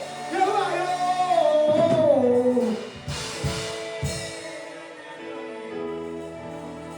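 A voice singing a held, wavering line that slides down and ends about two and a half seconds in, followed by a few drum hits and then held chords from the band.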